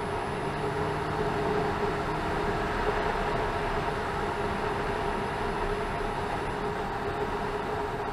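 Kawasaki ZZR 1400's inline-four engine running at a steady cruise, mixed with wind rush, heard muffled through an action camera's waterproof case on the rider's helmet.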